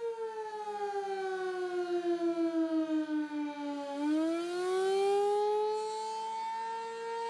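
Outdoor civil defense warning siren sounding during a test. Its steady tone slides down in pitch for about four seconds, then climbs back up to its earlier pitch and holds there.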